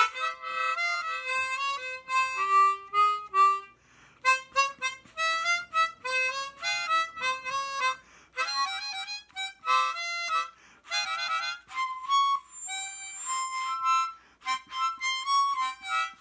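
A 12-hole Hohner Super Chromonica chromatic harmonica played solo in short melodic phrases with brief pauses, including a quick run of notes about eleven seconds in.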